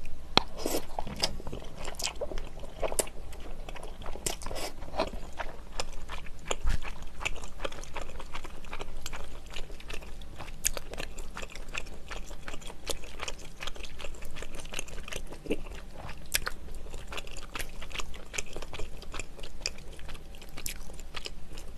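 Close-miked eating of chewy Chinese glass noodles in ramyeon broth: wet chewing and slurping, with a steady run of small mouth clicks and smacks.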